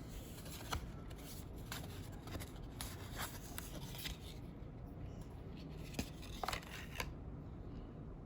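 Perfume packaging handled and opened by hand: an irregular run of crinkling, tearing and small clicks, stopping about a second before the end.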